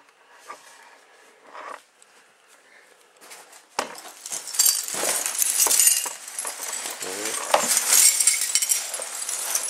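Loose shards of broken picture-frame glass clinking and scraping, with plastic sheeting crinkling, as a frame is lifted and handled. It is quiet at first; a sharp knock about four seconds in starts a busy stretch of clinks and rustling.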